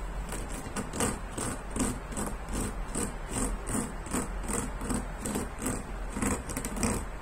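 A hand strokes back and forth across the plastic bristles of a cat self-grooming brush set in the side of a plastic litter box, making an even, rhythmic scratchy rasp of about two to three strokes a second.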